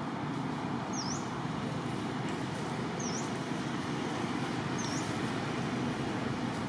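Steady, low rushing background noise, with a bird repeating a short high call that dips and rises again, about once every two seconds.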